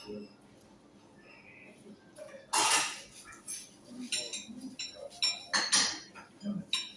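Cutlery clinking and scraping against plates and bowls during a meal, in scattered irregular knocks, the loudest about two and a half seconds in.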